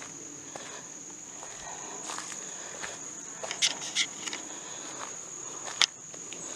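Insects singing a continuous high-pitched buzz, with a few sharp clicks a little past halfway through.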